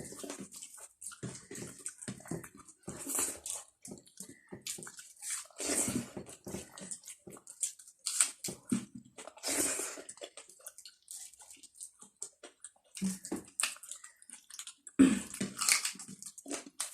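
Close-miked eating sounds: irregular wet chewing, smacking and mouth noises as rice and potato curry are eaten.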